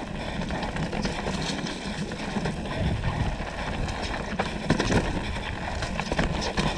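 Downhill mountain bike descending a dirt trail: steady wind rush on the action camera's microphone and tyre noise, with scattered knocks and rattles from the bike over the rough ground.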